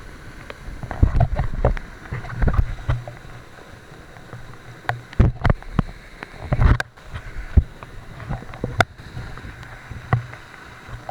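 Irregular close thumps and knocks, coming in clusters, over a steady rushing background.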